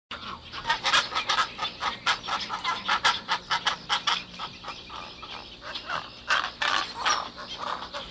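A group of pelicans on water, with busy, irregular splashing and bird calls mixed in.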